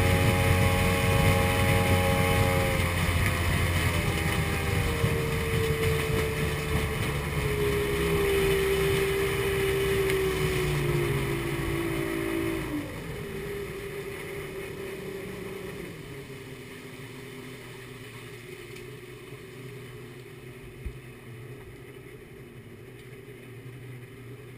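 Mercury Sport Jet's 175-horsepower two-stroke engine running under way, its note falling slowly as the throttle eases. About halfway through it drops sharply, and it then runs much quieter at low revs.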